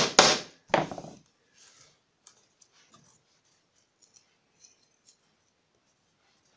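A hammer driving a small headed nail fully into a thin wooden lath on plywood: the last couple of sharp taps in the first second, then only faint clicks and light knocks as the wooden strip is picked up and laid down.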